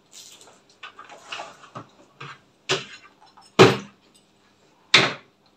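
A baby banging a small plastic toy on her high-chair tray: a few light taps, then three sharp knocks, the middle one the loudest.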